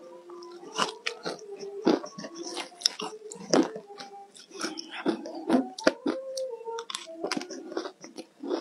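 Crushed green ice being chewed, a mouthful crunching in many irregular sharp crunches. A faint wavering tone sounds underneath.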